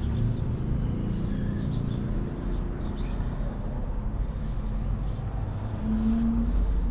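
Steady low rumble of background noise, with a few faint high chirps a few seconds in and a short steady hum near the end.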